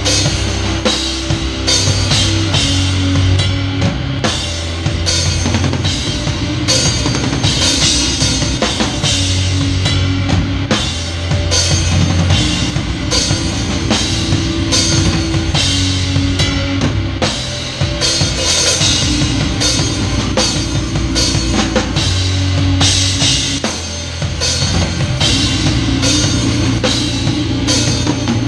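A grindcore band playing live, heard close up through a GoPro's microphone at the drum kit. The drums are up front, with kick drum, snare and cymbals hit in a dense, fast pattern, over low bass and guitar notes that shift every second or two.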